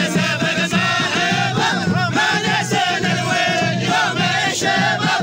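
A group of men chanting and singing together in an Omani folk song, loud and continuous, with a few sharp beats cutting through.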